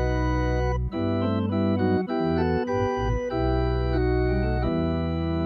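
Organ playing a hymn introduction in slow, sustained chords over a held bass line, the chords changing every second or so.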